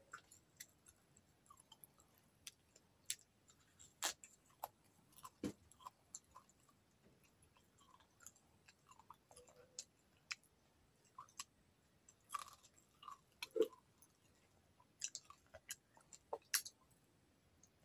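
Faint close-miked eating sounds of a person eating rice and fish fry by hand: chewing, with scattered soft wet smacks and clicks.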